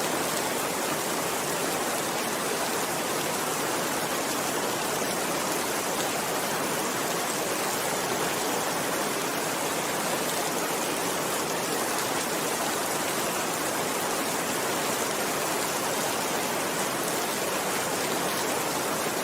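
Steady rainfall, an even rushing hiss with faint scattered drop ticks.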